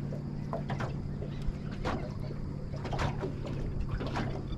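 Water lapping against a small boat's hull in irregular short splashes, over a steady low hum.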